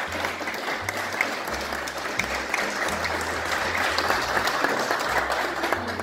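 A small audience clapping steadily.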